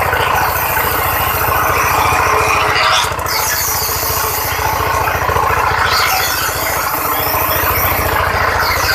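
Broom-handle production machine running steadily, with a fast, even low pulsing and a rushing noise over it, and brief sweeping whooshes about three seconds in, about six seconds in and near the end.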